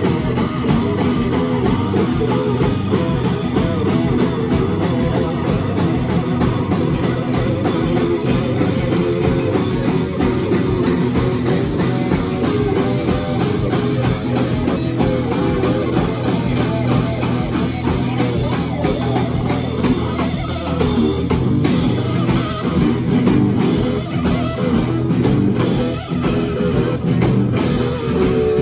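Live blues band playing an instrumental stretch of a song, with two electric guitars and a drum kit. The front guitarist is playing lead on a red electric guitar.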